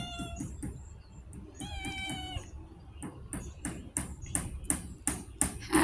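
Street cat meowing twice: the end of a meow that falls in pitch right at the start, then a second, steadier meow about two seconds in. A quick run of sharp clicks, about four a second, goes on underneath.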